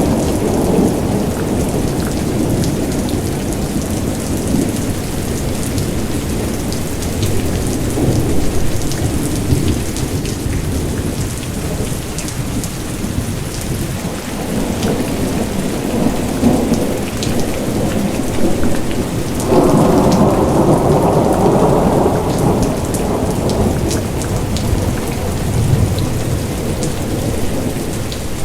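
Steady rain hissing, with scattered drops ticking, over low rolling thunder that swells and fades. A louder rumble comes about twenty seconds in.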